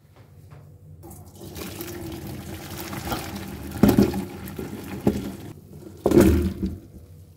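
Hot water and par-boiled potato sticks are poured from a pan into a stainless-steel colander in a sink. The water splashes and drains through, with two louder bursts about four and six seconds in as the potatoes drop in.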